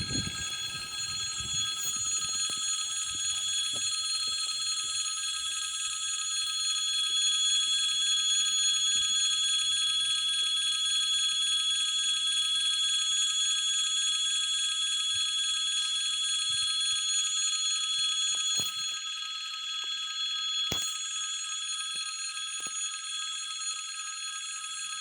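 Electric bell ringing continuously: a steady, metallic, multi-toned ring that drops slightly in level a little past halfway, with a few faint knocks underneath.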